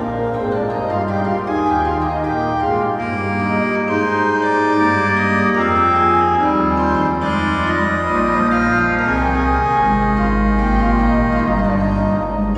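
Johannus Ecclesia digital church organ playing sustained chords through its loudspeakers, with deep pedal bass notes joining about eight seconds in.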